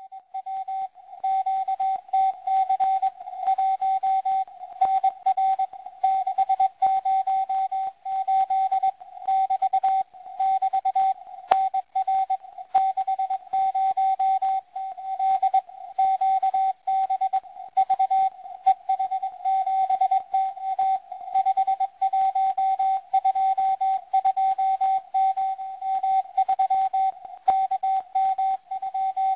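Morse code from the Israeli 4XZ CW number station received on shortwave: a single steady tone keyed on and off in dots and dashes, sending a message in five-letter groups, over faint receiver hiss.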